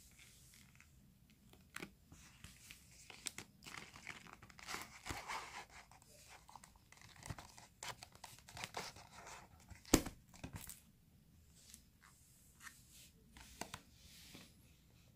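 Faint rustling, sliding and scraping of a Nokia 7 Plus cardboard retail box as its lid is worked off, with scattered light taps and one sharp click about ten seconds in.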